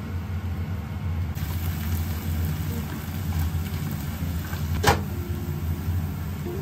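Onions frying in a pan on a gas hob, stirred with wooden chopsticks, over a steady low hum; one sharp tap of the chopsticks on the pan about five seconds in.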